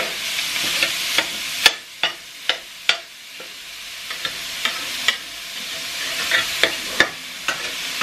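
Ground beef sizzling in a very hot stainless steel skillet while a slotted metal spatula breaks it up. The spatula scrapes the meat and knocks sharply against the pan a dozen or so times, at irregular intervals.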